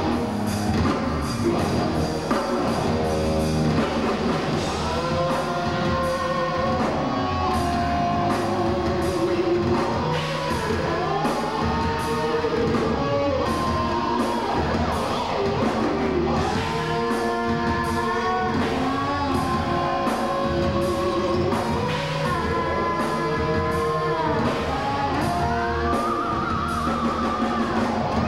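A heavy metal band playing live: distorted electric guitars, bass and a drum kit, with a male singer's held, sliding notes over them, recorded from the audience floor.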